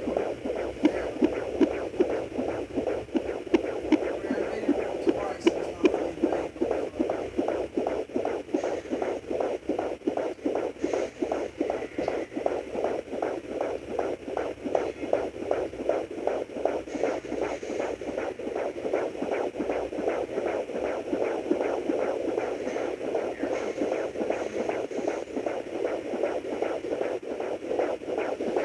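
Fetal heartbeat at 22 weeks picked up by a Sonoline B handheld fetal doppler: fast, regular pulses from its speaker.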